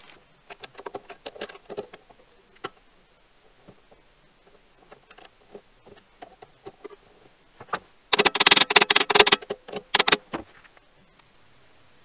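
Metal clicking and rattling as the lathe chuck's jaws and the aluminium workpiece are handled: scattered light clicks, then a dense burst of rattling clicks lasting about two seconds, the loudest part, from about eight seconds in.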